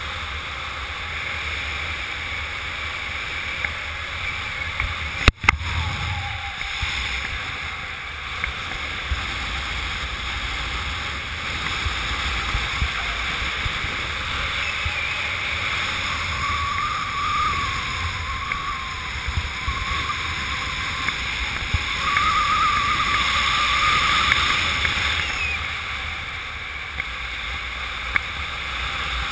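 Airflow rushing over the microphone of a camera carried in speed-flying flight: a steady rush with low buffeting rumble. A sharp click comes about five seconds in, and a faint wavering whistle rides over the rush for several seconds past the middle.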